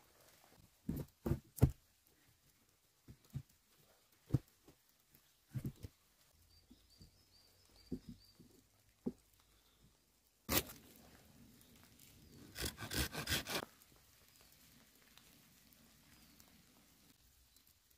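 Dead branches being handled and knocked about: scattered single wooden knocks and cracks, with a sharp knock a little past the middle and a quick run of crackling just after it.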